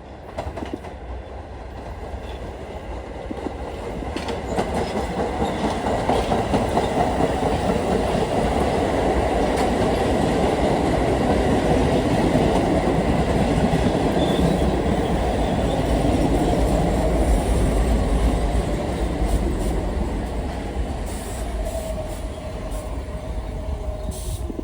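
R46 subway cars running past, growing louder over the first several seconds and then fading, with the clickety-clack of wheels over rail joints. A thin squeal is heard near the end.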